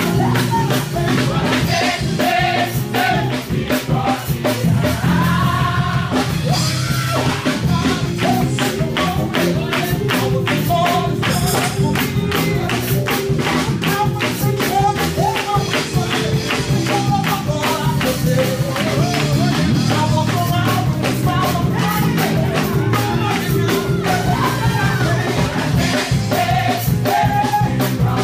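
Live gospel praise music: a group of voices singing together over a fast, steady beat of hand clapping and percussion.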